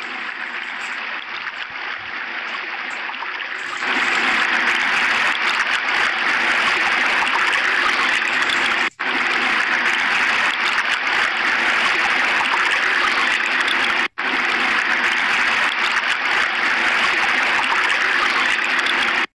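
Water running steadily from a sink faucet with a surgical mask stretched over the spout, growing louder about four seconds in and breaking off briefly twice.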